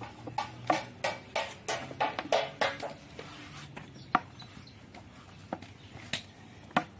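Hands patting a ball of flour-dusted bread dough back and forth between the palms: a quick run of about ten slaps in the first three seconds or so, then a few single taps.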